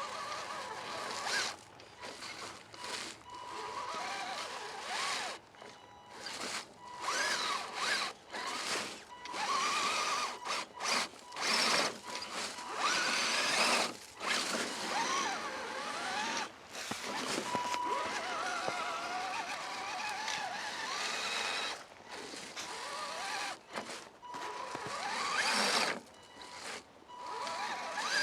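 RC crawler's electric motor and gear drivetrain whining in stop-start bursts of throttle, the pitch rising and falling as it revs, while the truck fights for traction in wet, packing snow.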